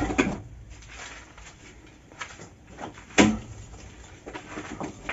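Long iron bar knocking and prying at a stone-and-mud-mortar wall to break it down: a few scattered knocks, with one sharp strike about three seconds in.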